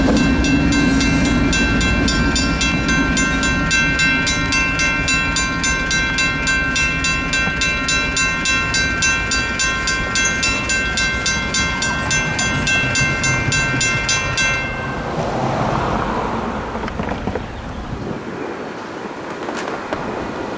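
Freight train passing with a low rumble that fades, while the level crossing bell rings in a steady rhythm; the bell cuts off suddenly about fourteen seconds in, leaving a hazy noise.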